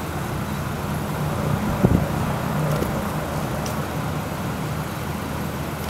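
Steady low hum of an idling vehicle engine, with a single short knock about two seconds in.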